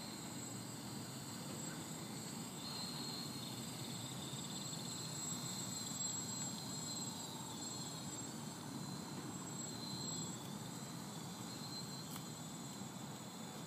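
Small quadcopter's electric motors and propellers whining steadily over a low rumble. The high whine wavers slightly in pitch a couple of times.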